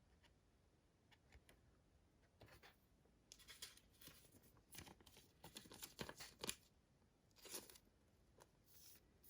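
Faint, scattered rustling and scraping of trading cards being handled and slid against one another, starting about two and a half seconds in.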